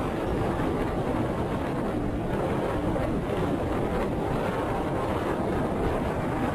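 Steady wind and road noise of a motorcycle riding along a street, with wind buffeting the microphone.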